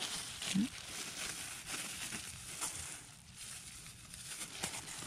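Light rustling and crinkling as hands in thin plastic gloves push through green bean leaves at the base of the plants.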